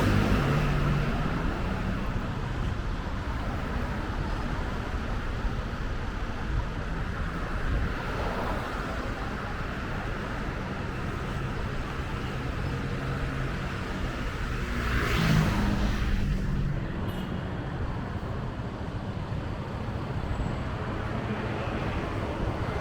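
City road traffic: a steady wash of passing vehicles and engine hum, with one vehicle passing closer and louder about fifteen seconds in.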